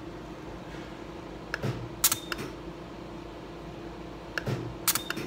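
Candela GentleYAG Nd:YAG laser handpiece firing two shots about three seconds apart, each a soft knock followed by a sharp snap with a brief hiss of its cryogen cooling spray, over a steady hum.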